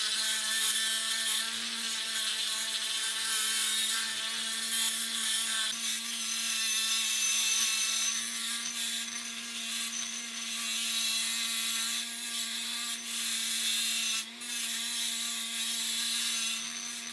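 Handheld rotary tool with a thin cut-off wheel cutting through a 1:64 diecast metal car body: a steady motor whine under a gritty, hissing grind of the wheel on the metal. The cut briefly eases off about fourteen seconds in.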